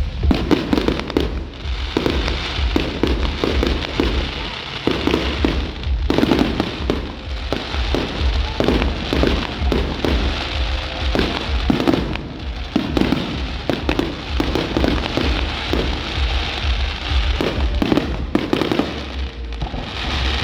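Fireworks going off in a continuous barrage, many bangs and crackles in quick succession, with music playing underneath.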